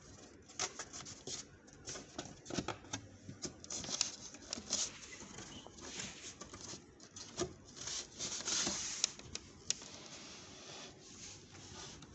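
Hands handling a laser-cut plywood box: scattered light taps, knocks and rubbing of fingers on the wood, with a longer stretch of rubbing or sliding about eight seconds in.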